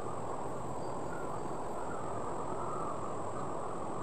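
Steady rushing of a shallow river flowing over rocks, with a faint steady high-pitched insect drone above it.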